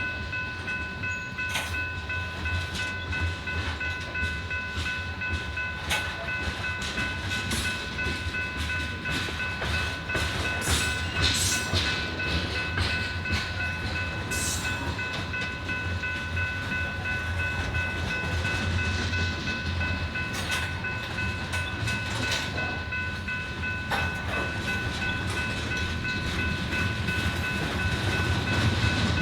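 BNSF manifest freight train rolling past. It makes a steady low rumble, with the clack of wheels over the rails and several steady high-pitched ringing tones held throughout.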